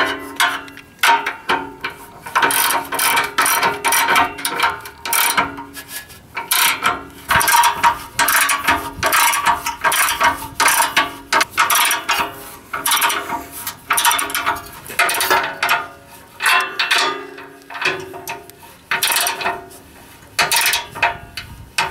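Hand socket ratchet clicking in repeated quick runs, with short pauses between them, as the nuts on a U-bolt exhaust clamp are tightened down.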